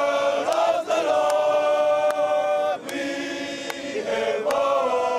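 Fiji national rugby team singing a hymn together, many men's voices in harmony, holding each chord for a second or two before moving to the next.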